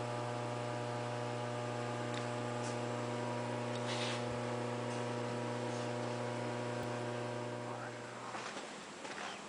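Steady electrical mains hum, a low buzz with many even overtones, that fades out about eight seconds in.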